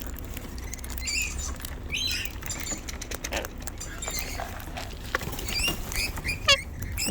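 Parrots feeding at close range: short soft chirps and squeaks, with scattered clicks and scratches of beaks and claws.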